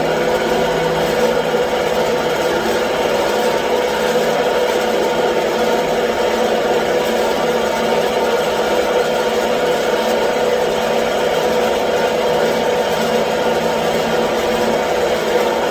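Belt-driven electric air compressor running steadily on a test run after its thrown drive belt was refitted. It makes a loud, even mechanical hum with one strong steady pitch.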